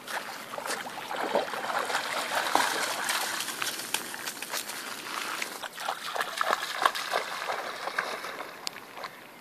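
Rough collie splashing through shallow water, with many quick splashes and sloshes as it wades and runs, easing off near the end.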